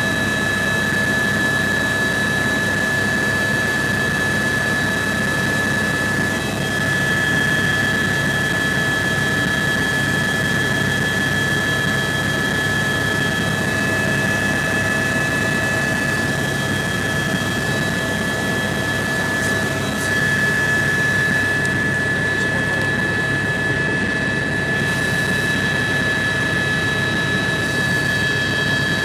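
Bell 206 helicopter cabin noise in flight: the turbine's steady high whine over a constant rush of engine and rotor noise.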